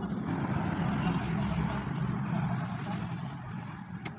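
A low engine rumble, like a motor vehicle passing, swells over the first second or two and then fades. Right at the end a hammer strikes a nail into a bamboo pole.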